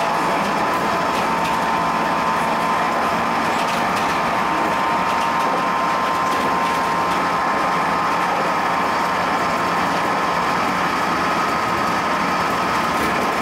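JR Central 211 series 5000-subseries electric multiple unit running along the track at steady speed, heard from the cab: an even running noise with a steady whine.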